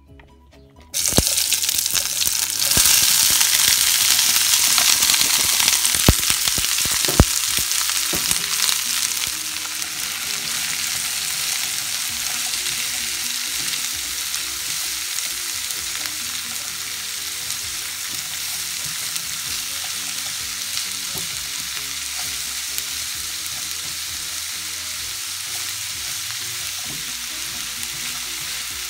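Chopped cauliflower, green bell pepper, onion and chayote sizzling in a hot skillet, stirred with a wooden spatula. The sizzle starts suddenly about a second in as the vegetables go into the pan, is loudest for the next several seconds with two sharp clicks, then settles to a steadier, quieter frying.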